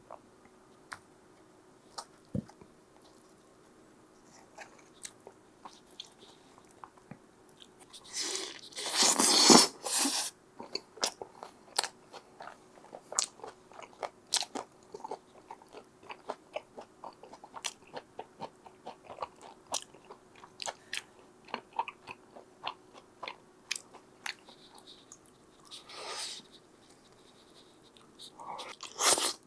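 Close-miked eating of pizza: a loud crunching bite about eight seconds in, then a long run of quick chewing clicks, with more bites near the end.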